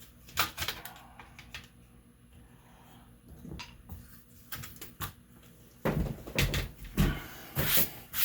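Laptop parts being handled on a work surface: a few light clicks early, then a run of louder knocks and bumps near the end.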